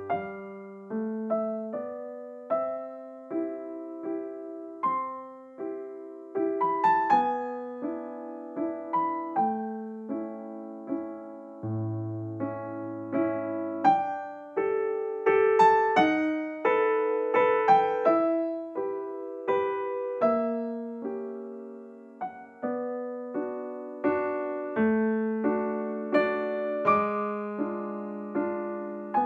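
Background piano music: a gentle melody of struck notes and chords, each note fading after it is played.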